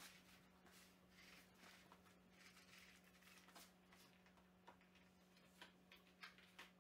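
Near silence: faint rustling and a few soft clicks from glue being spread on thin wood lamination strips, sharper clicks coming in the second half, over a steady low hum.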